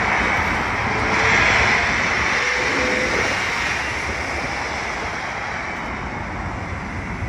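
A car going by: a steady rushing noise that swells about a second in and then slowly fades.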